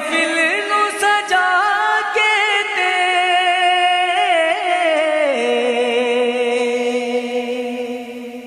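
Naat singing in Punjabi: a voice draws out a long wordless phrase with wavering, ornamented pitch, then settles about five seconds in onto a steady held note.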